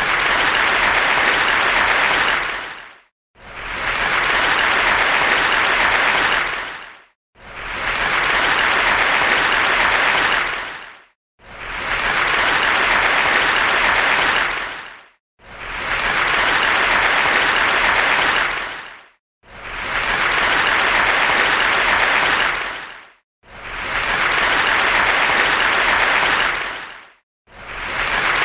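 Crowd applause from an ovation, heard as stretches of about four seconds, each fading in and fading out with a brief silence before the next, about seven times.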